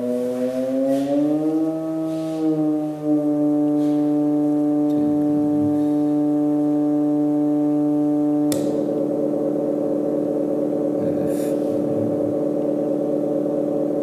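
Moog Mother-32 analog synthesizer holding a sustained buzzy drone. Its pitch slides up a little about a second and a half in and then holds steady. About eight and a half seconds in there is a click, and the tone takes on a fast, rough flutter.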